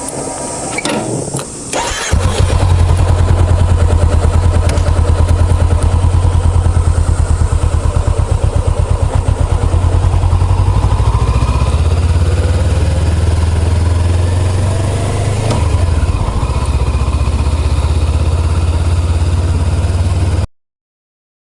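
Honda CBR400R's parallel-twin engine cranked briefly, catching about two seconds in and settling into a steady idle.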